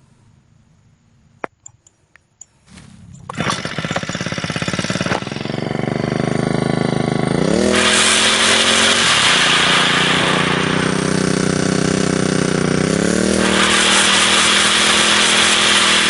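A brush cutter's Honda GX35 four-stroke engine starting after a few sharp clicks, idling, then revving up about 8 seconds in, easing off and revving up again near the end, as the modified cutting head is tested.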